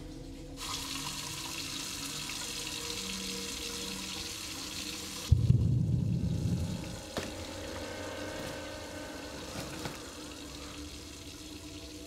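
Water running from a tap, a steady hiss that stops suddenly about five seconds in with a heavy thump. A second or so of low rumble and a single click follow.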